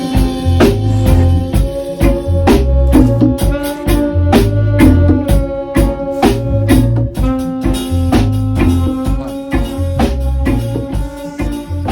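Music with a steady drum beat, a pulsing bass line and sustained keyboard-like chords.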